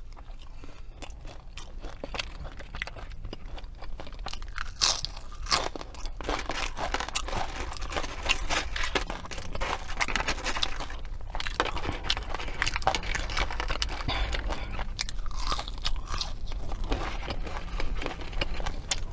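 Close-miked chewing and crunching of fast food in a steady run of crisp crackles and snaps.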